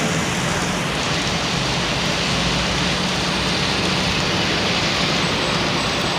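Water leaking through the bridge roadway and dripping and running down under the bridge in a steady, even patter like rain.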